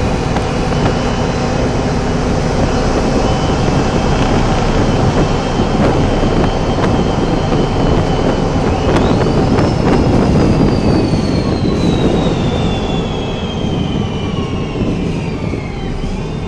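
Steady engine and road noise heard from inside a moving city bus, with a few rattling clicks. About eight and a half seconds in, a high whine rises quickly, then slowly falls over the following several seconds.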